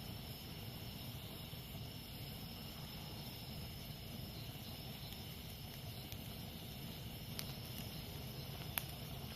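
Campfire burning with a steady low rush, and two sharp crackling pops in the last couple of seconds, the second the loudest. Jungle insects buzz steadily underneath.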